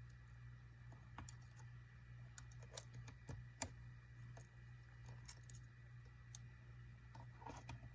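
Faint, scattered small clicks and ticks of a small tool against the phone's parts as the glued-down charge port flex cable and board are pried loose, over a steady low hum.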